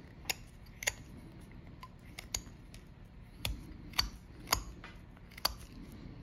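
Carving knife slicing small chips off a wood carving held in the hand: a series of sharp, crisp snicks, about eight cuts at uneven intervals.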